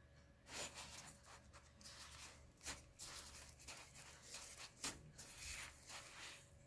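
Faint, irregular rustling and scratching of sesame seeds as a dough ball is pressed and turned in a plate of them by a plastic-gloved hand, with a couple of sharper ticks along the way.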